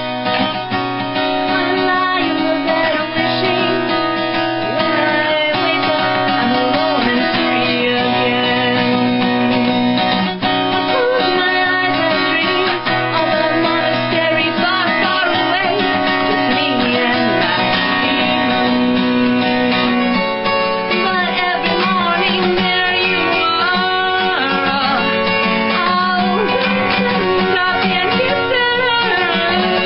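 Acoustic guitar strummed steadily in open B tuning, ringing chords in a folk-rock rhythm, with a woman singing over it at times, more so in the second half.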